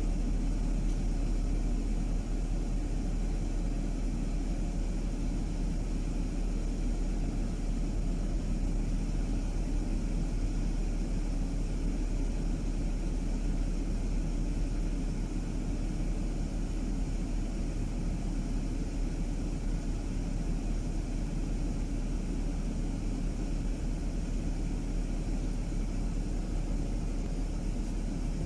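Car driving along at a steady pace: a constant low rumble of engine and tyres on the road.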